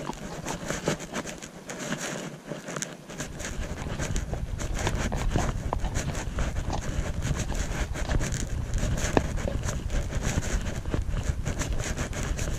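Wind buffeting the camera microphone, with a low rumble that comes in about three seconds in and stays, over the steady irregular clicks and thuds of a horse walking on a grassy track.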